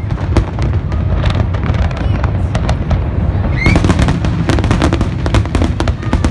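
Fireworks display: a continuous low rumble of booms under rapid sharp cracks and pops, which come thicker about halfway through.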